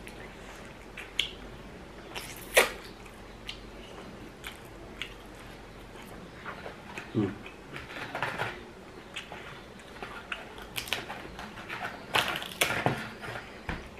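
Mukbang eating sounds: chewing and lip-smacking while eating rice, meat and green beans by hand, with scattered short clicks and mouth noises. The noises come thicker and louder in the second half.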